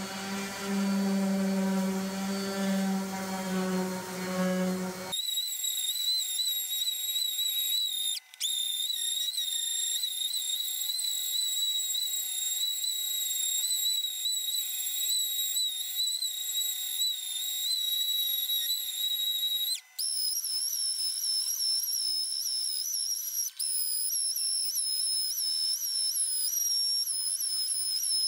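Electric sander sanding wood, its motor giving a steady high-pitched whine, with brief breaks about 8 and 20 seconds in.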